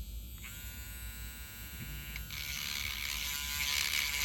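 Small electric drill's motor spinning up about half a second in and running with a steady whine. From about two seconds in a louder, harsher grinding hiss joins as the bit works the cured resin print, grinding away excess resin that stops the head from fitting.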